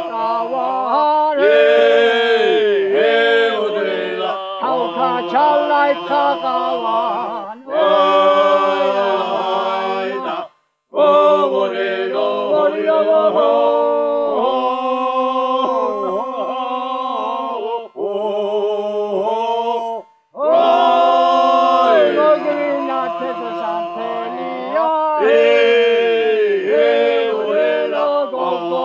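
Georgian folk song sung a cappella by a small group of elderly men, several voices sounding together in harmony. It goes in phrases with brief breaks between them, a short full stop about eleven seconds in and another about twenty seconds in.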